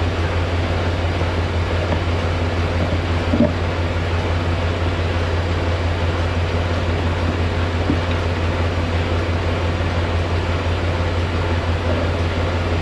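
Semi truck's diesel engine idling with a steady low hum, with a couple of faint knocks as the air hoses are handled and coupled.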